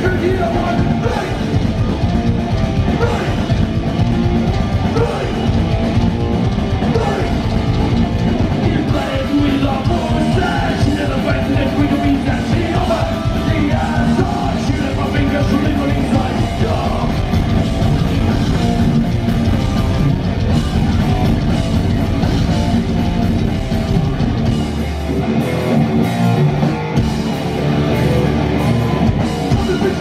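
Heavy metal band playing live, heard from the audience in a club: distorted electric guitars, fast drumming and shouted vocals. The deepest bass drops out for a few seconds near the end.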